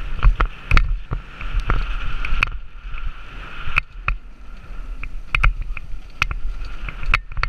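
Mountain bike descending a rough trail: the bike rattles, with many sharp knocks as it hits bumps, over a constant low rumble of wind on the helmet-mounted microphone. A steady high buzz sounds underneath much of the time.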